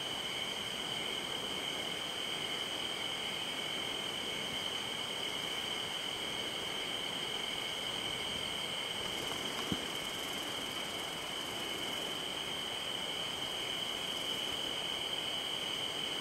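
Crickets trilling continuously in a steady night insect chorus, with one small click about ten seconds in.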